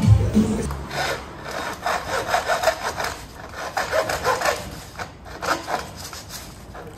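Hand saw cutting wood in quick back-and-forth rasping strokes, starting about a second in and stopping near the end.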